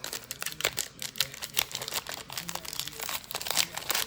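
Baseball card packs and cards being handled: irregular crinkling and crackling of the pack wrappers and cards.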